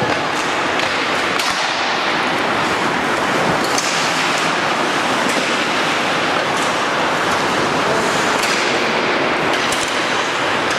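Steady hiss of ice hockey skate blades scraping the ice, with a few faint sharp clicks of sticks and puck scattered through it.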